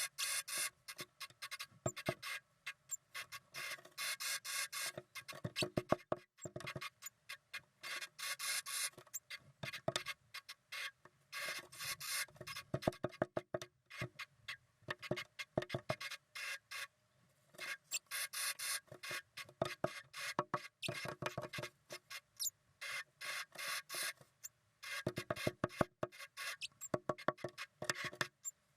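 Blue tit pair making the female's strange noise: quick raspy, scratchy clicks in bursts separated by short pauses.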